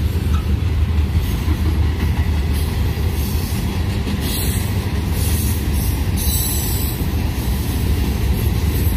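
Train cars rolling past: a steady low rumble of steel wheels on the rails, with brief bursts of high-pitched noise about four and six seconds in.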